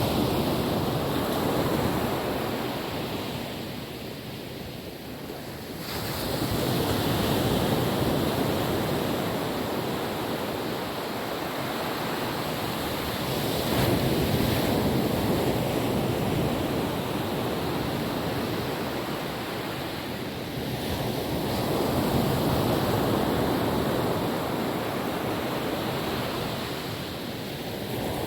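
Calm ocean waves washing on a beach, a steady surf hiss that swells and ebbs every several seconds, with some wind on the microphone.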